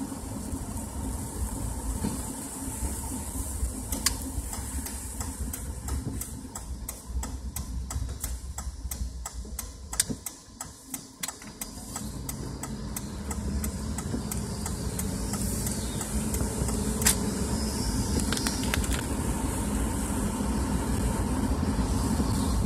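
A car driving on a wet road, heard from inside the cabin: a steady low rumble of engine and tyres with a hiss of spray, and many sharp, irregular ticks of raindrops hitting the windshield. The rumble drops away about ten seconds in, then builds again as the car picks up speed.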